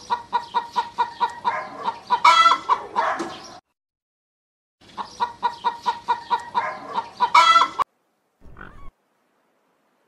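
Domestic hen clucking in two runs of quick, evenly paced clucks, about four or five a second. Each run swells into a louder, higher squawk before stopping, with a short pause between the runs.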